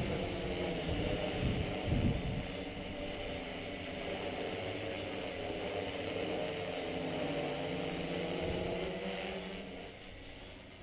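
Tarot T960 hexacopter's six electric motors and propellers humming in flight, several tones drifting up and down in pitch as the motor speeds change. A couple of low thumps come about two seconds in, and the hum fades near the end as the craft flies off.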